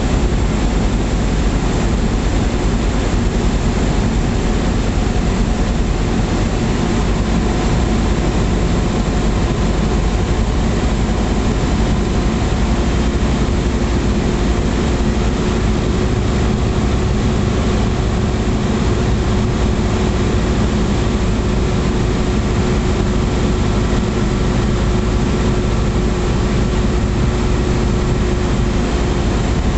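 Light aircraft's piston engine and propeller droning steadily, heard from inside the cabin mixed with airflow noise, during a low approach to a grass airfield. A higher steady tone comes in about halfway through.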